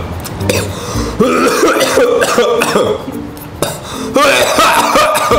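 A man coughing hard in a run of loud coughs, with throat clearing between them.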